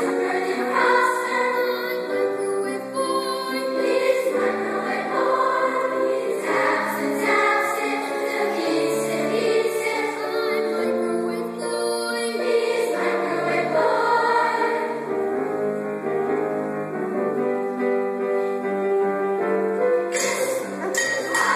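Large youth chorus singing, many voices holding sustained chords. A high rattling percussion sound joins near the end.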